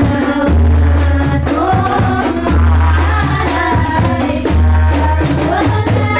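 A rebana group playing frame drums and singing, heard loud through a PA sound system. A deep bass boom comes about every two seconds under the voices.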